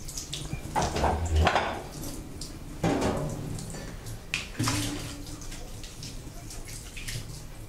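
Kitchen tap running into the sink as dishes are washed. A wooden chair is dragged on the floor about a second in, with a few knocks and clinks of crockery around three and five seconds in.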